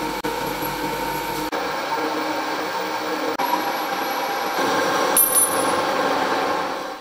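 Metal lathe running with a steady whine as a twist drill bores into a spinning round bar, then a cutting tool turns the bar down, throwing chips. The sound is made of short clips joined with sudden breaks, and it is somewhat louder in the last couple of seconds.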